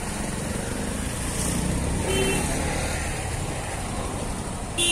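Motor vehicle engine running close by on a road bridge, swelling about two seconds in, with a short horn toot then and another at the very end.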